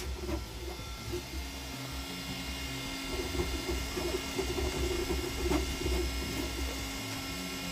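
Creality Ender-3 V3 SE 3D printer printing: its stepper motors whir in short, changing tones as the printhead moves over the bed, over a steady fan hum.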